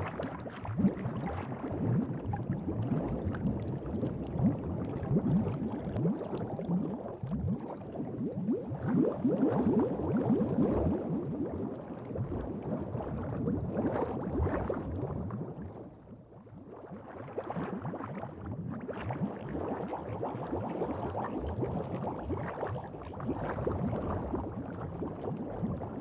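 Underwater bubbling sound effect: a dense stream of bubbles gurgling, softening briefly a little past the middle.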